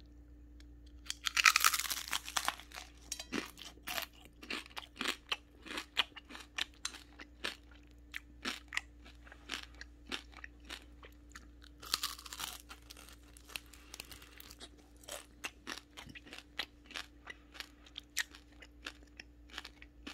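Someone crunching and chewing crispy fried rockfish: a loud crackling bite about a second and a half in and another around twelve seconds, with brisk crunchy chews between and after.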